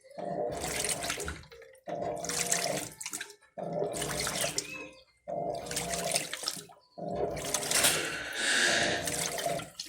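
Electrolux LTC15 top-loading washing machine agitating a tub filled to the maximum water level: the water sloshes in five strokes of about a second and a half each, with a brief pause between strokes.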